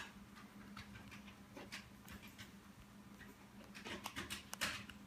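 Faint, scattered clicks of a handheld remote control's buttons being pressed to step the menu to the D4 reading, with some handling rustle, over a low steady electrical hum.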